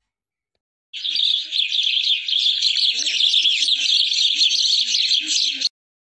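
House sparrows chirping in rapid, overlapping chirps. The chirping starts about a second in and cuts off abruptly near the end.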